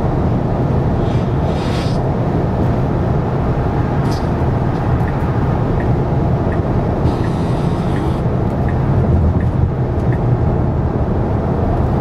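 Steady road and wind noise inside the cabin of a Tesla Model Y at highway speed, mostly a low rumble, while the car eases off from about 86 to 76 mph. A faint, regular ticking, about one tick every 0.7 s, runs for a few seconds midway.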